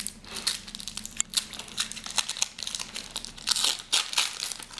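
Foil wrapper of a hockey trading-card pack crinkling and tearing as it is opened by hand: a rapid, irregular run of crackles, densest and loudest near the end.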